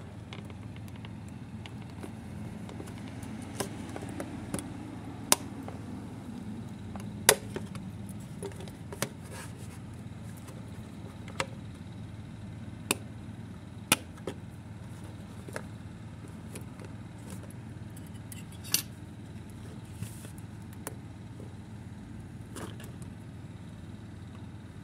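Scissors snipping the clear plastic fasteners that hold a small doll in its cardboard box, with the box and plastic being handled: about a dozen sharp, separate clicks and snips at uneven intervals, over a steady low hum.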